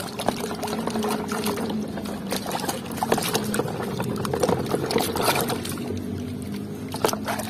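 A hand swishing and scrubbing a plastic toy pistol in a plastic tub of foamy soapy water: continuous irregular splashing and sloshing, with a few sharper splashes near the end.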